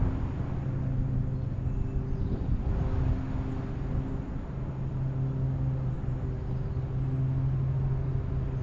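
Bass boat's bow-mounted electric trolling motor humming steadily, dropping away briefly a couple of times as it is switched off and back on.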